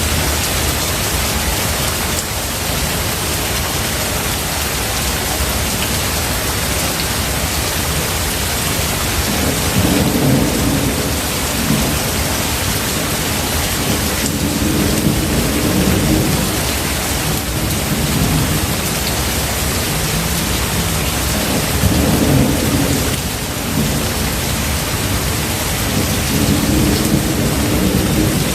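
Steady rain with rolling thunder: four low rumbles of thunder swell and fade under the rain, about a third of the way in, near the middle, and twice toward the end.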